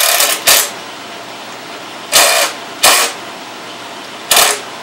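The cover plate of an APC Smart UPS 1400 being fitted back onto the unit: five short scraping knocks, one right at the start, then about half a second in, a little after two seconds, near three seconds and about four and a half seconds in.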